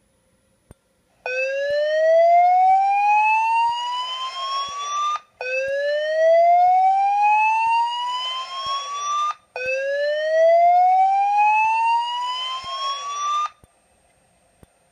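Gentex SSPK24CLPW speaker strobe sounding the slow-whoop tone that opens a Fire-Lite voice evacuation message. It plays three loud rising sweeps of about four seconds each, with short breaks between them, starting a little over a second in.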